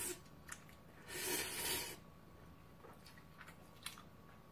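Slurping and chewing instant ramen noodles: one long, loud slurp about a second in, followed by quieter chewing with a few small clicks.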